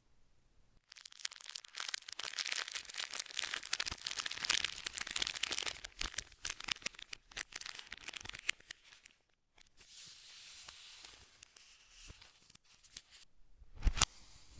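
Plastic packaging being torn open and crinkled, a dense crackling run of small clicks for several seconds, then softer rustling. A single sharp knock comes near the end.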